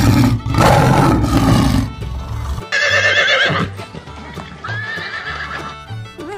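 A horse neighing over background music: a wavering whinny about three seconds in, after a loud noisy opening, with a steady bass line running underneath.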